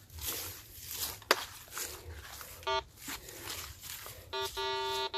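Rustling and scraping in soil with a sharp click about a second in, then a metal detector's buzzing target tone, sounding briefly near the middle and held steadily for the last second or so as it picks up metal in the ground.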